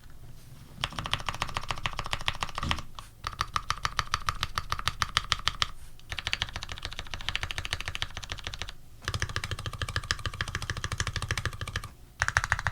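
Fast typing on an Archon FX mechanical keyboard tuned with lubed Retooled Black linear switches (TX films, TX 65 g springs), PBT keycaps and an aluminium plate. Rapid keystrokes come in runs of about three seconds with brief pauses between them.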